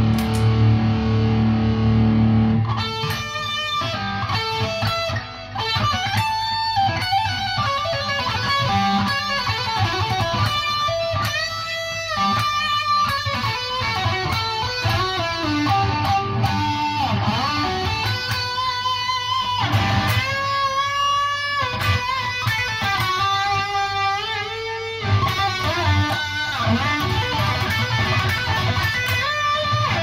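Mayones Hydra Elite electric guitar played through a PRS MT15 tube amp head with 5881 power tubes. A low chord is held for the first couple of seconds, then it stops and fast single-note lead lines follow, with string bends.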